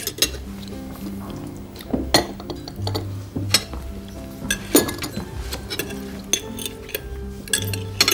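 Knife and fork clinking against a plate, many sharp clinks scattered through, the loudest about five seconds in, over background music.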